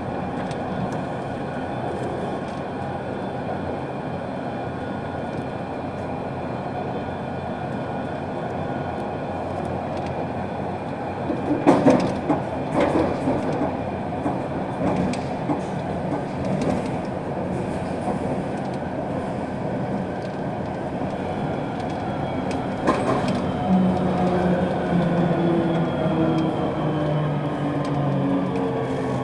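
Barcelona Metro line 10 train running along the track with a steady rumble. Clattering knocks come from the wheels, mostly between about twelve and seventeen seconds in and once more a few seconds later. Near the end a motor whine slides downward in pitch.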